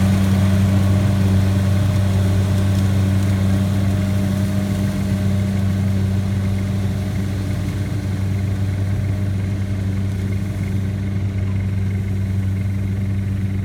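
Kubota DC70 rice combine harvester's diesel engine running steadily under harvesting load, a continuous low drone that eases slightly as the machine works its way away.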